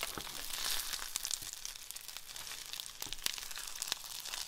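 Boneless chicken pieces sizzling in hot oil in a nonstick frying pan, a steady hiss with scattered sharp crackles and pops, loudest in the first second, as a wooden spatula stirs them.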